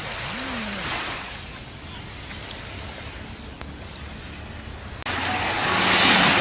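Small waves washing onto a sandy beach, the surf swelling about a second in and again, louder, after a sudden jump about five seconds in.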